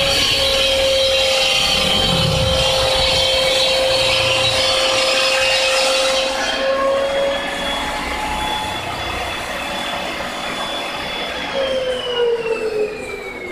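CNC tile cutting machine's blade motor running with a steady whine while the blade grinds through a tile with a loud, high hiss. The grinding stops about six and a half seconds in and the motor runs on more quietly. Near the end the motor spins down, its whine falling in pitch.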